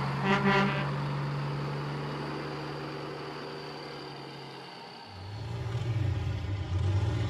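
A truck horn toots twice in quick succession over a steady engine drone that fades away over the next few seconds. About five seconds in, a lower engine rumble comes up and grows louder.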